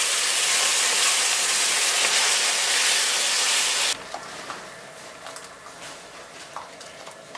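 Onion and garlic frying in oil in a steel frying pan, with a loud steady sizzle as tomato purée goes in, cutting off abruptly about four seconds in. After that come quieter small clicks and scrapes as a spoon scrapes the mixture from the pan into a multicooker pot.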